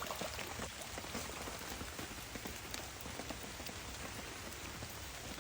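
Steady rain falling, with many small irregular drop ticks over an even hiss.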